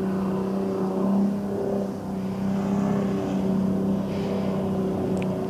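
Jetboat engine running at a steady pitch, a continuous hum with small swells in level.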